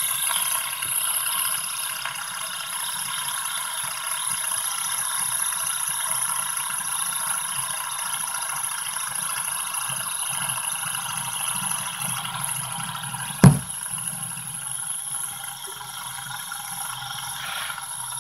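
Fidget spinner whirring steadily as it spins, with one sharp knock about three-quarters of the way through.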